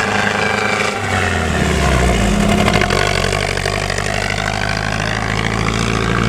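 Diesel bus engine and exhaust running under load, with a deep rumble that grows louder about a second in.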